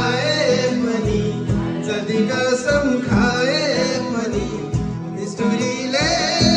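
A song playing, with a voice singing over guitar and a steady beat of about two thumps a second.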